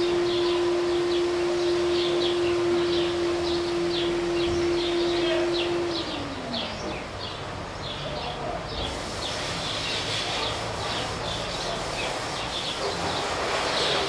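House sparrows chirping repeatedly in quick, short notes. Beneath them a steady droning tone slides down in pitch and stops about six seconds in.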